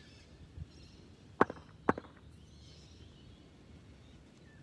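Two sharp knocks about half a second apart, from a cricket bat being tapped at the crease in a practice net.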